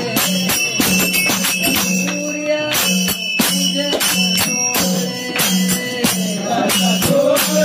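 Marathi Vitthal bhajan: devotional music driven by a steady, repeating beat of jingling percussion.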